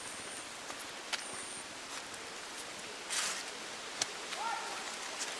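Tropical forest ambience heard while walking along a forest path: an even hiss with a few short high insect-like tones, light footfalls and brushing of leaves, a louder rustle about three seconds in, and a short chirp-like call near the end.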